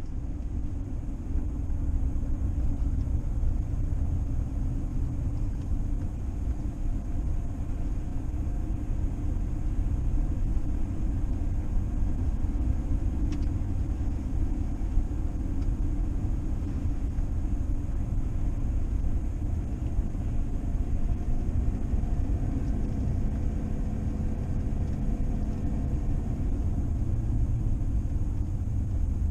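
A vehicle driving along the road: a steady low rumble of engine and road noise.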